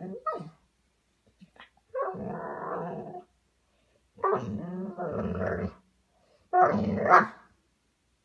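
Golden retriever puppy growling at its own reflection in a mirror: three drawn-out grumbling growls of about a second each, the last one the loudest.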